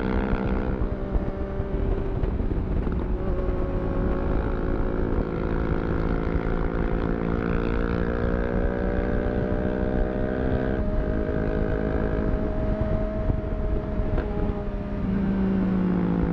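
Triumph Street Triple 675 inline-three motorcycle engine running under way, its pitch drifting slowly up and down with the throttle and a short break about eleven seconds in, with wind rushing over the microphone.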